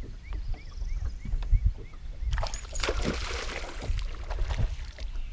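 Lake water lapping and slapping against the hull of a bass boat, with a bird giving a quick run of about seven short chirps in the first two seconds. About two and a half seconds in, a rush of hiss lasts around a second.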